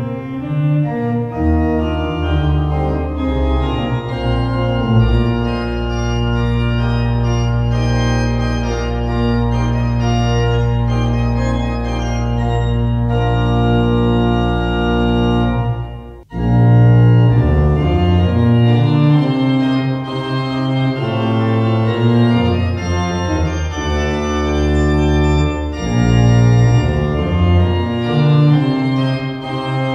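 Organ playing a chorale setting of a hymn tune in several parts, with long held bass notes in the first half. A brief break about halfway through, then the playing resumes louder.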